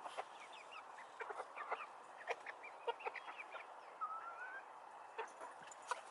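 A flock of chickens clucking softly while feeding, short clucks scattered through, with one short rising call about four seconds in.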